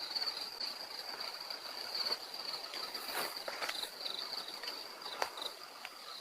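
Crickets chirping in a steady, pulsing high trill, with a few faint clicks and rustles.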